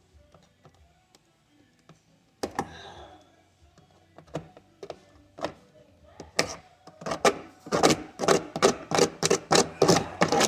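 A single knock, then a fast run of sharp clicks and taps, about four a second, getting louder over the last few seconds, from hands working on the speaker parts.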